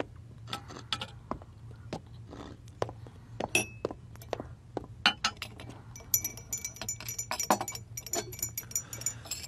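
Tea glasses and saucers clinking as they are set down on a table, with footsteps, followed from about six seconds in by a teaspoon stirring quickly in a glass of tea: rapid ringing clinks of metal on glass.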